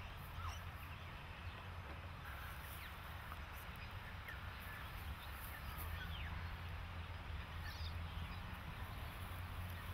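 Outdoor ambience: a steady low rumble with scattered short bird calls over it.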